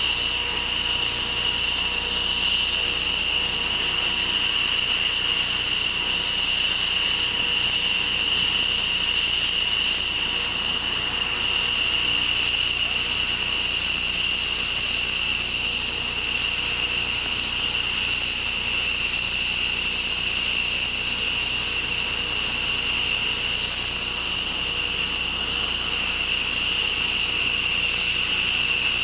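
F-15 fighter jet engines idling on the ramp: a steady, high-pitched jet whine over a rushing hiss.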